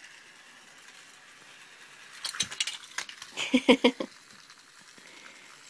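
Plastic toy train set being handled, with a burst of clicks and clattering knocks from about two to four seconds in.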